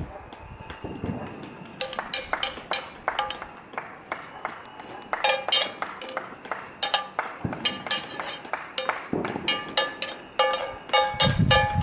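A metal pan beaten with a spoon, in quick runs of ringing clangs, about four or five a second, with short pauses between the runs.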